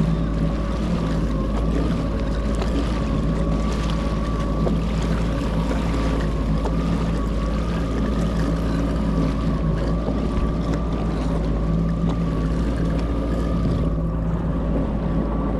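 Jet ski engine running steadily at low speed, an even hum with a few fixed tones over a low rumble, with a light wash of water and wind.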